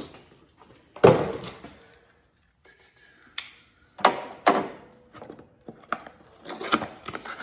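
A handful of thunks and rustles from parts packaging being handled and opened. The loudest comes about a second in, with quieter knocks and rustling after it.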